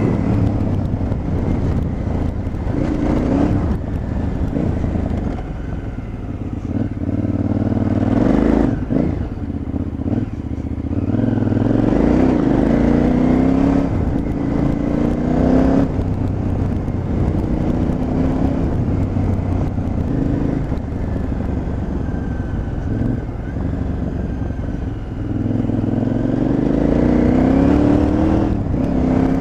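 KTM 950 Adventure's V-twin engine pulling the bike along a dirt track, its pitch rising as the throttle opens and dropping back several times, with a steady wind rush on the microphone. The pitch dips briefly around eight and ten seconds in, then climbs from about eleven seconds and again near the end.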